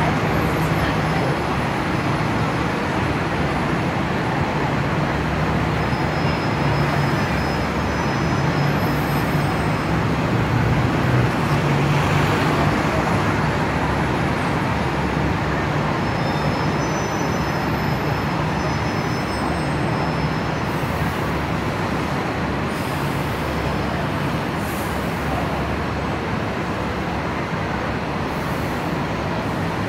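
Steady street traffic noise from double-decker buses and cars, with a low engine hum that is strongest in the first half.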